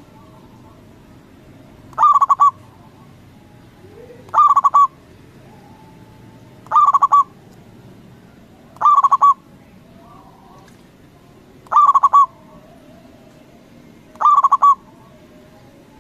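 Zebra dove (perkutut) cooing: a short phrase of a few rapid, clear notes, repeated six times about every two to three seconds.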